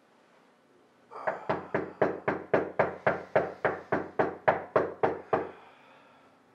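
Rapid, insistent knocking on a door: about twenty sharp knocks at four to five a second, starting about a second in and stopping shortly before the end.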